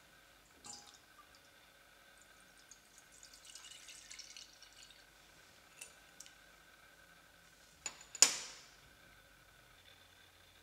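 Milk poured into a stainless steel pot, a faint splashing and trickling, with a few light taps around it. About eight seconds in, something hard strikes the pot with a sharp clink and a short high ring.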